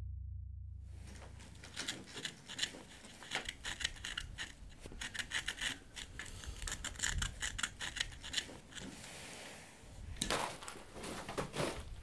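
A thin metal tool scratching letters into a painted wall in quick, repeated scraping strokes.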